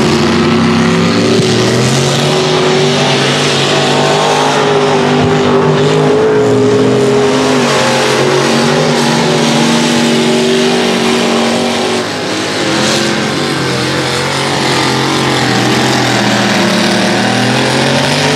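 Mud-racing pickup truck engines running hard at high revs on a dirt track. The engine note climbs and drops in steps as the drivers shift and get on and off the throttle, with a brief drop in loudness about twelve seconds in.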